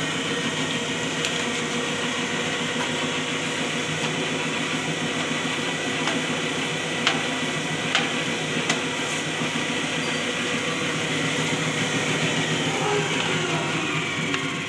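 Paper cutting and creasing machine running at speed, a steady dense mechanical clatter from its rollers and scoring wheels, with a few sharp clicks near the middle.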